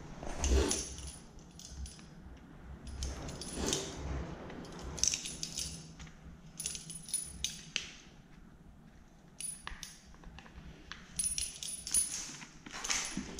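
A thin metal pick scraping and clicking against a chainsaw's plastic housing while debris is picked out of it, in irregular short bursts with a few quiet pauses.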